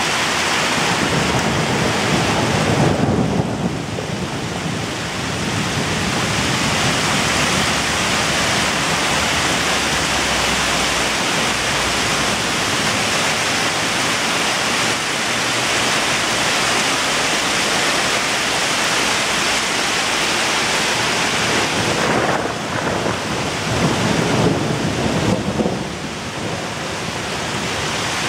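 Hail and rain pelting down hard on parked cars and pavement during a thunderstorm, a dense steady hiss of impacts. A low rumbling swells up about three seconds in and again late on.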